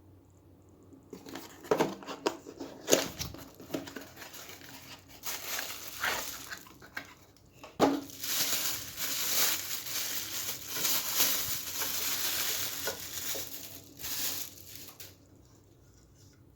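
Packaging being unwrapped and crinkled, with a few sharp knocks about two, three and eight seconds in. The crinkling is densest from about eight seconds on and stops near the end.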